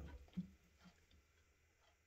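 Water in a glass bong bubbling at the end of a draw, stopping a fraction of a second in, followed by one short low thump, then near silence with a few faint ticks.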